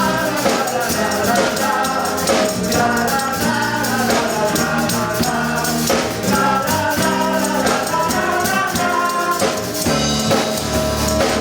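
A live band playing a song: a melody over bass and drums, with hand percussion such as a shaker or tambourine.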